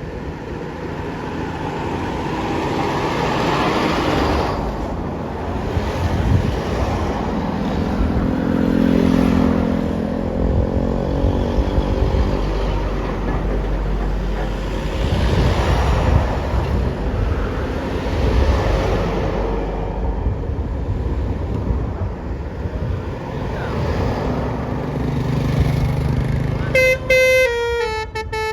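Road traffic passing, buses and other vehicles going by one after another in repeated swells of engine and tyre noise. Near the end a bus's multi-tone Basuri 'telolet' musical horn starts playing a rapid melody.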